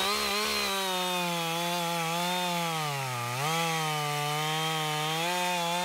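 Two-stroke chainsaw running at full throttle and cutting through a log. About three seconds in, the engine pitch dips as the chain bites into the wood under load, then picks back up.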